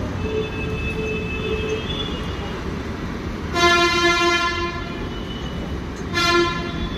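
A vehicle horn sounding twice, a long blast of about a second a little past halfway and a short one near the end, over steady street traffic rumble.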